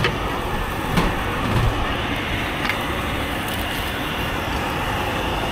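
Steady hubbub of a packed market crowd, many indistinct voices blending together, with a short knock about a second in.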